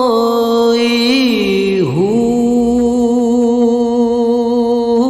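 A man singing a Sufi kalam in a long held note, with small wavering ornaments. The pitch swoops down and back up about two seconds in.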